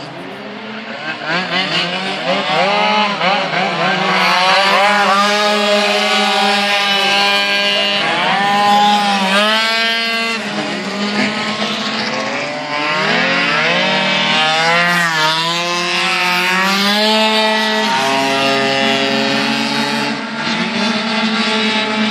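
Engines of several racing scooters revving as the pack laps the circuit. Their pitches rise and fall over and over and overlap one another, the whine climbing as each rider accelerates.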